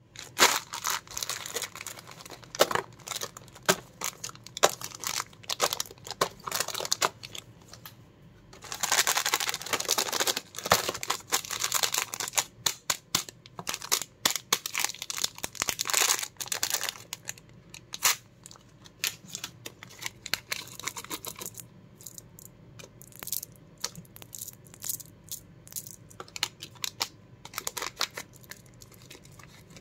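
Plastic Cadbury Gems candy packets crinkling and rustling in the hands, with many sharp crackles and a dense stretch of rustling about nine to eleven seconds in; near the end a small packet is being torn open.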